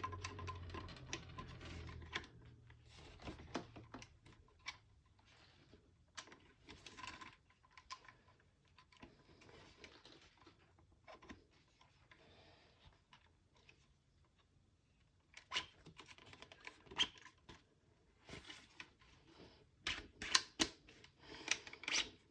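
Faint, scattered clicks and taps of small parts and tools being handled during assembly, with a few louder clusters of clicks near the end.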